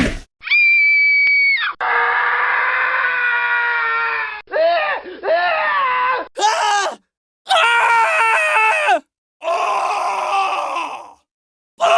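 A string of separate human screams, one after another with short silent gaps: a steady very high shriek, a long held scream, then five shorter screams whose pitch rises and falls, one of them wavering.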